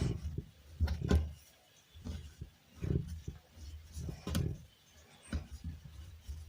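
Stiff egg-noodle dough being worked by hand, most likely kneaded: irregular soft thuds and pushes, roughly one every second, with a few lighter clicks between them.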